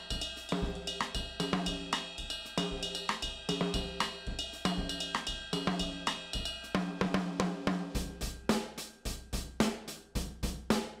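Sampled acoustic drum kit from Premier Sound Factory's Drum Tree library playing its 60s Detroit pop demo groove: a steady beat of kick, snare, hi-hat and cymbal. About seven seconds in the pattern changes and the hits come faster.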